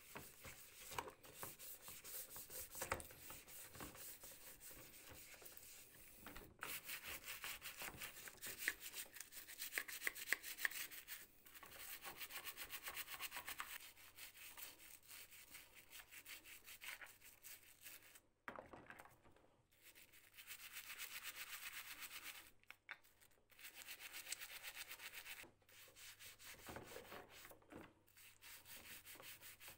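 Stiff hand brush scrubbing small carpet sweeper parts in soapy water, in bursts of rapid back-and-forth strokes with short pauses between them.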